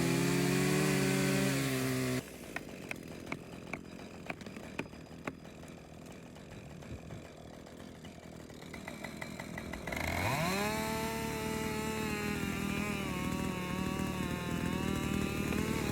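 Chainsaw running, then cut off about two seconds in. A scatter of sharp clicks and knocks follows. About ten seconds in a chainsaw starts up, its pitch rising quickly and then holding at a steady high run.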